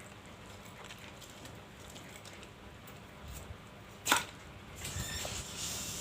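Close-miked mukbang eating sounds: a sharp click about four seconds in, then a wet, crackly noise near the end.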